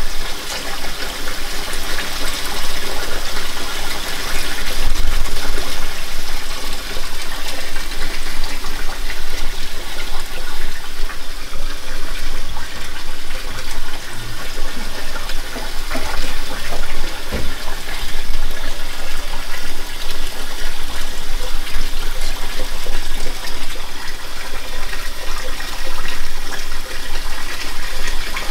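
Kitchen faucet running steadily into a stainless steel sink during dishwashing, with a few sharp clinks of dishes being handled.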